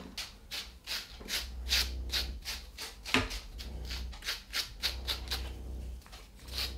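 An Airedale terrier's wiry coat being hand-stripped: fingers pluck out dead hair in short scratchy pulls, about three a second.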